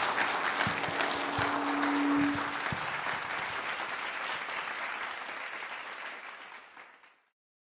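Audience applauding, the clapping tapering off near the end and then cutting off suddenly.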